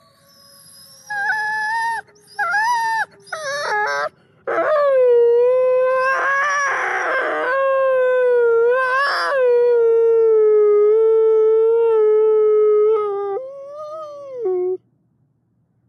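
A wolf howling: three short broken calls, then one long howl held at a nearly steady pitch for about ten seconds. It rises briefly in the middle, then dips and swells again before it cuts off.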